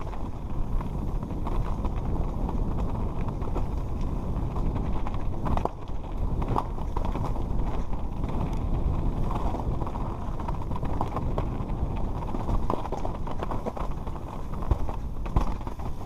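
Mountain bike descending a rocky trail: tyres crunching over loose stone, with frequent knocks and clatter from the bike over a steady low rumble.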